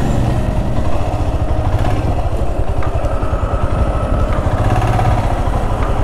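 Motorcycle engine running steadily as the bike is ridden, a rapid, even pulse.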